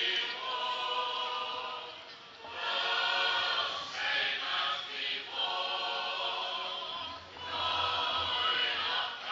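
Massed community choirs singing together in long held phrases, with a short break for breath about every two seconds.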